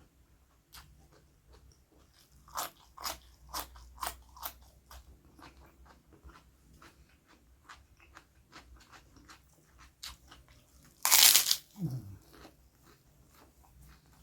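Close-up eating sounds: crisp crunching bites and chewing, with a quick run of loud crunches early on that thins to softer chewing. About eleven seconds in there is one much louder, brief noisy burst, followed by a short low sound that falls in pitch.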